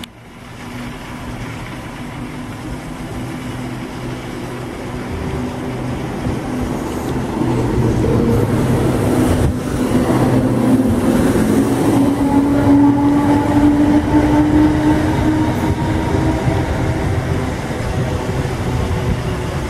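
Trains running through a station. A Class 350 electric multiple unit passes close along the platform, building to the loudest point about halfway through, with a rising whine at that point. A Class 230 D-Train unit draws in towards the platform behind it.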